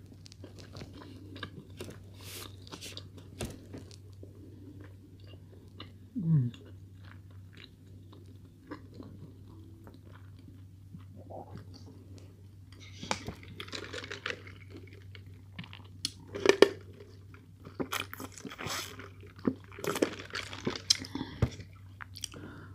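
A person chewing and crunching fast food close to the microphone: short, scattered mouth and crunch sounds with quiet gaps, busier in the second half, over a low steady hum.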